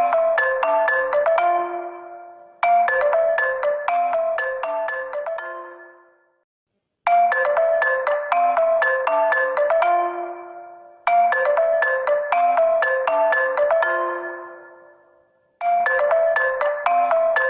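Honor smartphone ringtone: a short, bright mallet-percussion melody that loops, each phrase starting sharply and dying away. It restarts about every four seconds, with one brief silence before a repeat.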